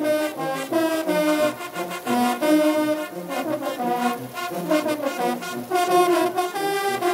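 Bersaglieri military brass fanfare of trumpets and tubas playing a tune together, the tubas carrying the bass under the trumpet melody.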